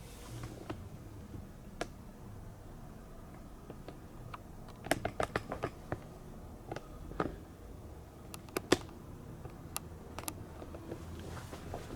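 Scattered sharp clicks and small crackles, with a quick cluster about five seconds in, over a low steady hum.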